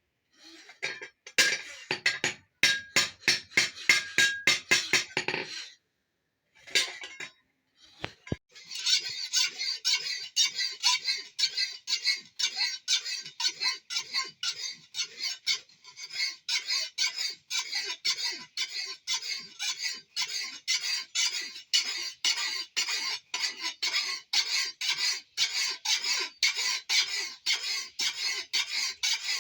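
Blacksmith's hammer striking metal on an anvil, a quick run of ringing blows for about five seconds. After a short pause, fast, even scraping strokes of metal on metal, several a second, carry on to the end.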